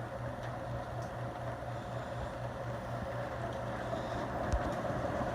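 Antique Westinghouse ceiling fan running steadily on medium speed: an even motor hum with a bearing noise that the owner thinks sounds like a worn bearing. Rain falls in the background, with a few faint clicks.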